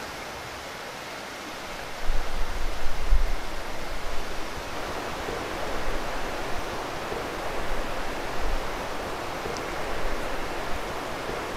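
Steady rushing wind, with gusts buffeting the microphone in uneven low rumbles from about two seconds in.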